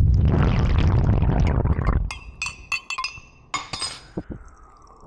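Coffee poured into a cup, heard from inside the cup as a dense, loud rush for about two seconds. Then comes a quick run of sharp, ringing clinks against the cup, with one more clink a little later.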